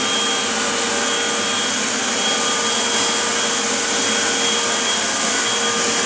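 Eureka SuctionSeal Pet upright vacuum cleaner running steadily while being pushed over carpet: a steady rush of air with a constant high whine. It is still set to tool mode, so the floor brushroll is not switched on.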